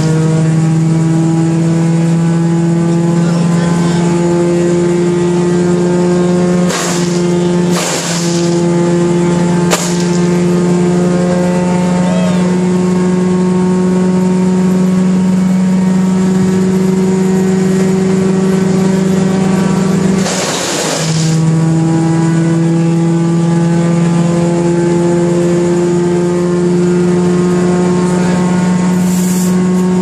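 1974 Wayne wood chipper's engine running steadily at speed while brush is fed through it. There are a few short crunching bursts about a third of the way in, and a longer one about two-thirds through, where the engine briefly dips.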